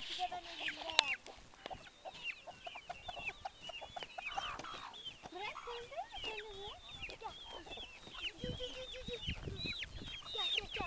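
Free-ranging hens clucking and calling as they peck at thrown bread, with many short high chirps falling in pitch throughout. A single sharp knock about a second in.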